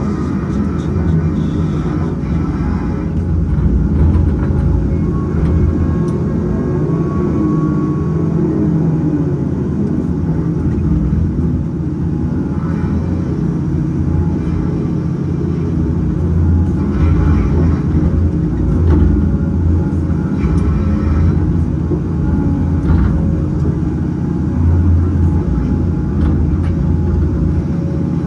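Caterpillar 568 log loader's diesel engine running steadily under load, heard from the operator's cab, as the grapple swings and loads pulp logs onto a log truck. A few short knocks of logs being set down sound over it.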